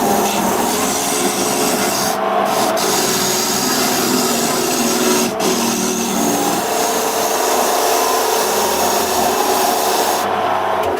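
An electric woodworking tool running steadily while cutting or sanding wood, a dense rasping noise over a motor hum whose pitch shifts slightly about halfway through.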